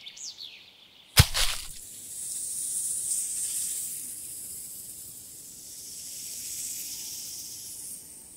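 Sound-effect outro under a music video's closing title card: a few faint high chirps, a single sharp hit about a second in, then a long high airy hiss that swells, dips and fades out near the end.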